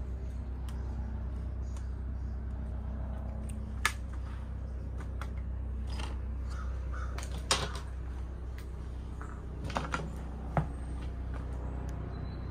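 Footsteps and handling noise over loose demolition debris, a sharp knock or crunch every few seconds, over a steady low rumble.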